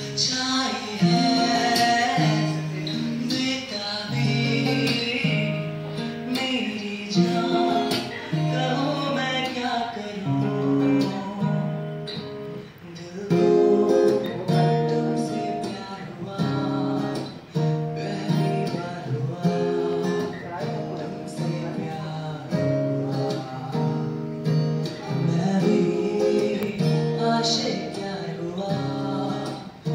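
A man singing a song into a microphone over a guitar accompaniment of held, repeating chords.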